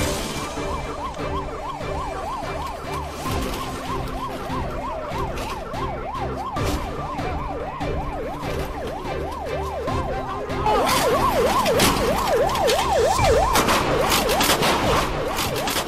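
Police car siren on a fast up-and-down yelp, about three sweeps a second, growing louder about ten seconds in. A rapid string of sharp bangs follows over the siren: police pistol shots fired at a fleeing car.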